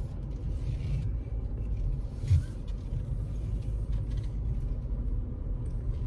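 Low, steady rumble of road and engine noise inside a car cabin while driving, with one brief thump a little over two seconds in.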